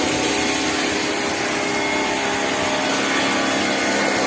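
A Bosch Aquatak 125 1500-watt pressure washer running steadily, its motor noisy, while the spray gun's water jet hisses onto a car's bodywork.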